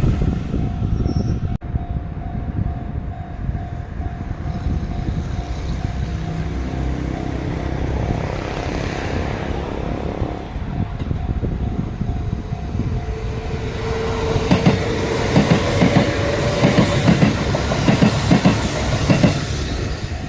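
Sanyo Electric Railway train passing a level crossing. A steady level-crossing warning tone sounds through the first half. In the second half the wheels clatter loudly over the rail joints, while the traction motors whine, rising in pitch.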